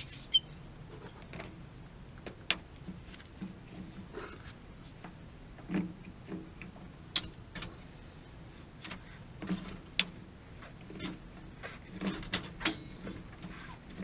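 Scattered clicks and metallic taps of a wrench working a pipe fitting on a gas water heater, coming irregularly a second or so apart, over a faint steady low hum.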